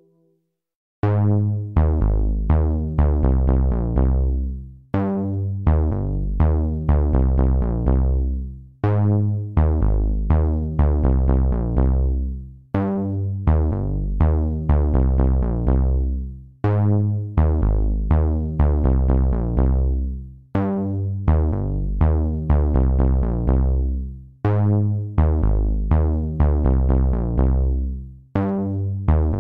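Electronic background music with synthesizer and drum machine. After a brief silence a track starts about a second in: short, quickly fading synth notes over a steady bass in a phrase that repeats every few seconds.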